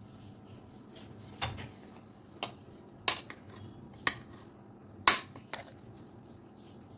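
A metal spoon clinking against the side of an aluminium pressure cooker as cooked biryani rice is turned over: about seven short, sharp knocks, roughly a second apart.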